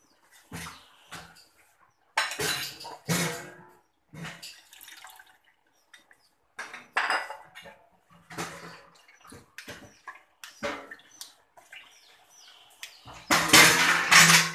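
A metal spoon scraping and pressing wet grated coconut against a plastic sieve in irregular strokes, the loudest burst near the end, with coconut milk dripping and trickling into the bowl below as it is strained.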